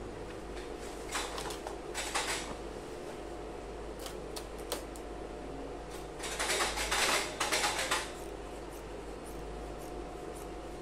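Tailor's scissors cutting through black trouser cloth to trim the excess seam allowance, with the cloth rustling as it is handled: short snips about a second and two seconds in, then a longer run of cutting about six to eight seconds in. A steady low hum runs underneath.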